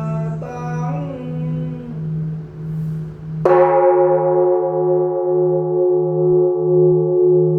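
Buddhist temple bell struck once about three and a half seconds in, then ringing on in several steady tones that slowly fade with a slow wobble. Before the strike a chanting voice is heard, and a low pulsing hum runs throughout.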